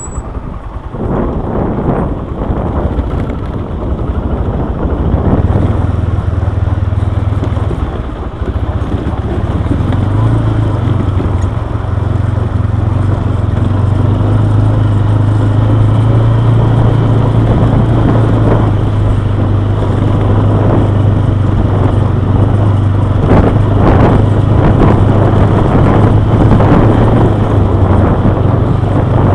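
Quad bike engine running steadily while riding along a gravel track, with a low steady hum that settles in about five seconds in, over rough road and ride noise.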